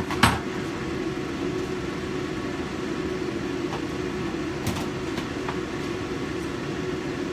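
Steady mechanical hum from kitchen equipment, with two sharp clicks of a dish or utensil at the very start.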